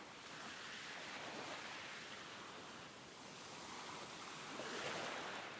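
Faint ocean surf: a soft rushing hiss of waves that swells and falls back twice.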